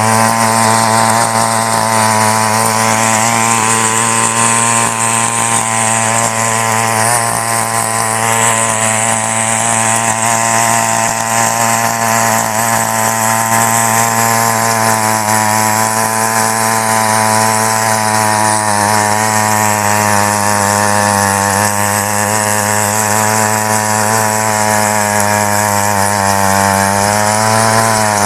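Mini power weeder's small petrol engine running steadily at working speed while its rotary tines till the soil.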